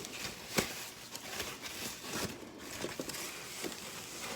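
Guitar packaging being handled: irregular rustling and crinkling with a few light clicks and knocks, one sharper knock about half a second in.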